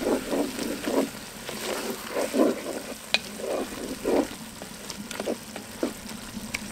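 Wooden spoon stirring chopped vegetables in simmering red wine in a cast-iron Dutch oven: uneven scraping strokes about every half second over a steady sizzle, with a single sharp click about three seconds in.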